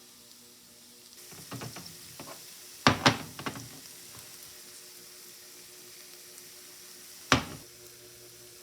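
Faint frying sizzle with utensils and cookware clattering: a few light knocks, a loud pair about three seconds in, and one more sharp knock near the end.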